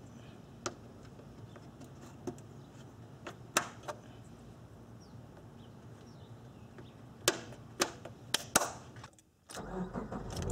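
Plastic radiator-support cover being pressed back into place, with several sharp clicks and snaps as its clips seat. Near the end, the car's flat-four engine starts and runs.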